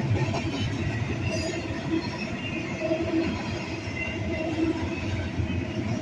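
Train rolling past on the rails: a steady rumble of wheels on track with faint, intermittent squealing.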